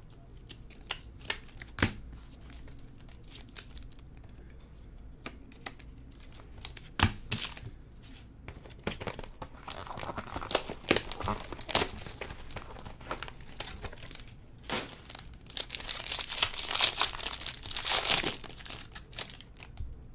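Trading card packaging being handled and opened: foil and plastic wrappers crinkling and tearing, with scattered sharp clicks and taps. The crinkling is heaviest about ten seconds in and again near the end.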